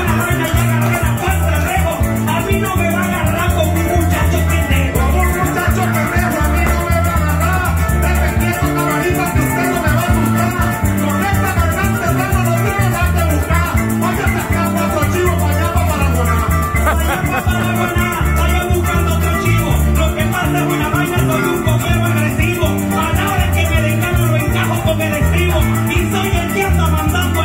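Live Venezuelan llanero music: a llanera harp, maracas and electric bass playing, with a man singing contrapunteo verses into a microphone over the band through a PA.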